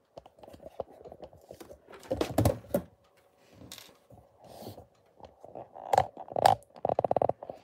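Handling noise at a workbench: scattered clicks, taps and light knocks, a louder cluster about two seconds in, and a fast, even run of clicks near the end.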